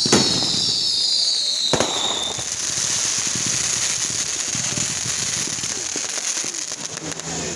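Fireworks going off: several high whistles sliding down in pitch over the first two seconds, two sharp bangs, and a dense crackling that runs on.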